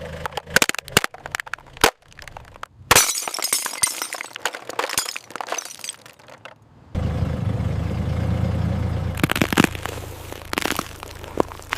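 Brittle objects cracking and breaking under a car's tyre: sharp cracks, then a dense run of crunching. Just past halfway the sound drops out briefly, then the car's engine runs low while a few more cracks come.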